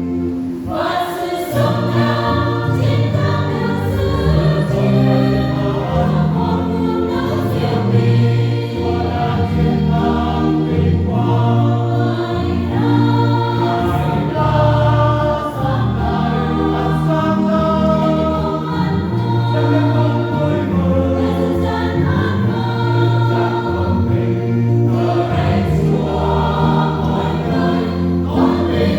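Church choir singing a Vietnamese Catholic hymn in several voices, with sustained chords over a moving bass line.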